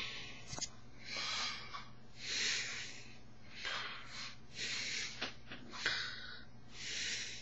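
A person breathing audibly through the nose: short hissing breaths, about one a second, with a few faint clicks over a steady low hum.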